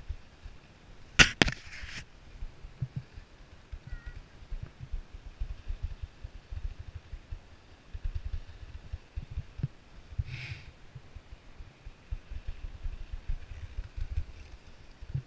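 Wind buffeting the camera's microphone in gusts, with a sharp clatter and brief swish about a second in.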